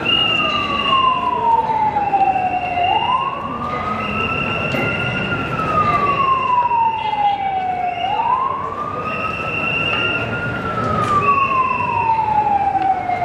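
A siren wailing, sweeping up quickly and then falling slowly, about every five seconds, with a second steady high siren tone that breaks off and resumes every few seconds, over street noise.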